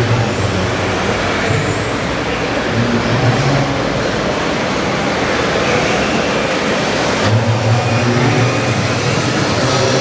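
Simulated diesel engine sound from a radio-controlled Mercedes Actros model tipper truck, running with a steady low hum that grows louder about seven seconds in, over a constant noisy background.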